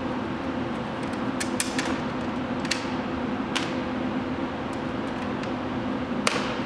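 Sharp metallic clicks and knocks of hand tools and screws being worked, about half a dozen at uneven intervals with the loudest near the end, over a steady mechanical hum.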